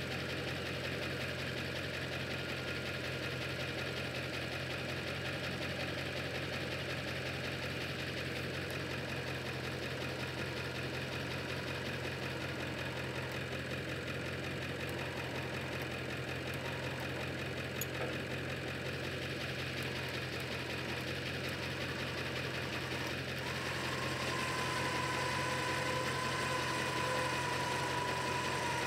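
An engine idles steadily throughout. Near the end the electric winch of the Venturo CE6K truck crane starts up with a steady whine as it hoists a trailer tongue.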